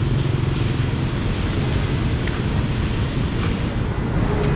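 Steady outdoor city ambience: a low traffic rumble with wind buffeting the microphone, and a motorbike's engine hum fading away near the start.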